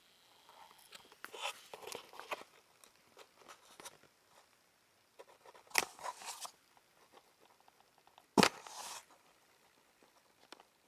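Paper crackling and crunching close to the microphone as a cat paws and bites at the torn edge of a paper enclosure, in scattered bursts. A sharp snap comes about six seconds in, and the loudest sound, a knock followed by a short rustle, about eight and a half seconds in.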